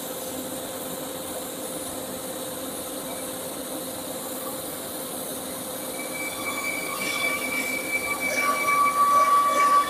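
TIG welding arc running steadily on a pipe root pass: a steady hiss with a low hum, joined about six seconds in by a high whine that grows louder toward the end.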